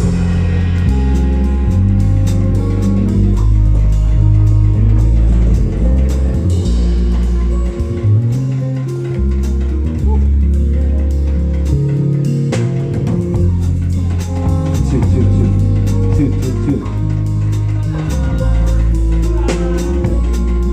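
Live band playing a groove: bass guitar holding long, heavy low notes under a steady drum-kit beat with guitar on top.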